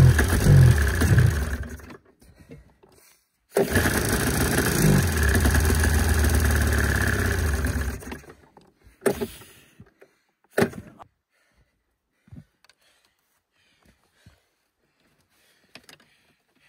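1987 Arctic Cat Cougar 500 snowmobile's Suzuki two-stroke engine revving unevenly and dying about two seconds in, then catching again and running for about four seconds before it dies once more; a few short knocks follow. The owner thinks there is still water in the fuel.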